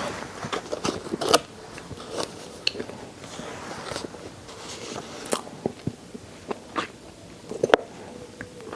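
Close-miked chewing on chicken neck: bones crunching and cracking between the teeth, with irregular wet mouth clicks. Sharp cracks come about a second and a half in and again near the end.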